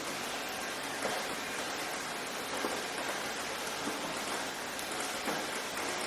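Steady rain falling, an even hiss with scattered individual drops landing close by.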